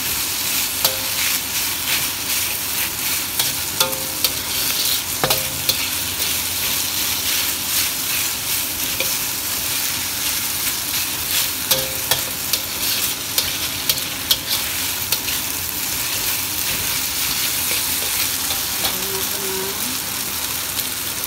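Sliced meat with green pepper and onion sizzling steadily in a wok, stir-fried with a metal spatula that scrapes and clacks against the pan. Some of the harder strikes set the wok briefly ringing.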